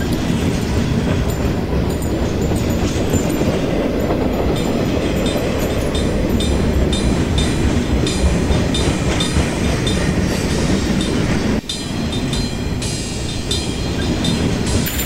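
A train running by: a steady rumble with a rhythmic clicking clatter of wheels over the rails, broken by a brief sudden dip about three-quarters of the way through.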